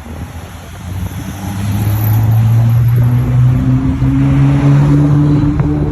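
An engine running and speeding up: its hum grows louder about a second in and rises slowly in pitch over the next few seconds.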